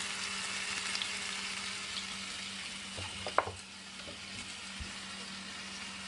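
Flour-dusted chuck roast searing in olive oil in a nonstick braiser: a steady sizzle, a little fainter in the second half, over a faint low hum. A sharp knock about three and a half seconds in.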